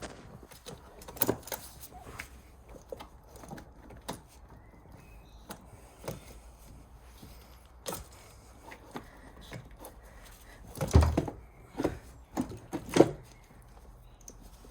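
Scattered knocks and clunks as a car battery is handled in the engine bay, with a heavier thump about eleven seconds in and a few sharp knocks just after.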